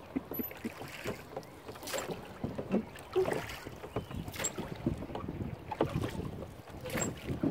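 Rowboat being rowed: the oars knock in their metal oarlocks and dip into the water with each stroke, a knock every second or two.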